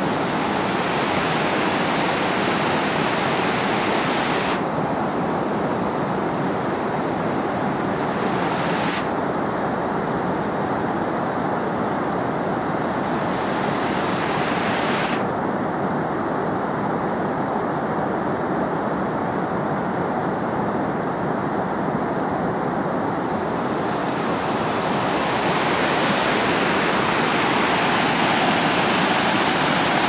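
White water rushing and splashing down a shallow cascade over rock slabs, a steady loud rush. Its hiss turns abruptly duller and brighter several times, about 4.5, 9 and 15 seconds in and again near the end.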